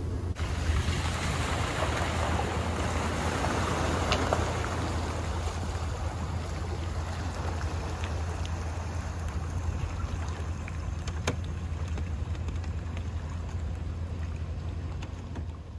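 Pickup truck engine running steadily as the truck tows a boat trailer through shallow floodwater, with water washing around the wheels.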